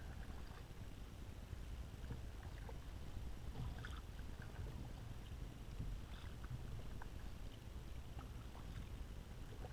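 Kayak paddling: the paddle blade dipping and pulling through calm water, with drips and small splashes coming now and then over a steady low rumble.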